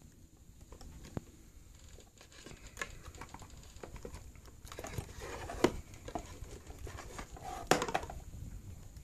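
Handling noise of a leather long wallet being lifted out of its cardboard box: rustling and scraping with scattered sharp clicks and taps. The activity grows busier in the second half, and the two loudest clicks come a little past halfway and near the end.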